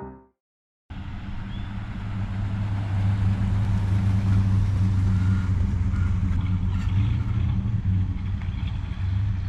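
A car engine running as the car pulls up, a steady low hum that comes in about a second in and grows louder over the next two seconds, then holds steady.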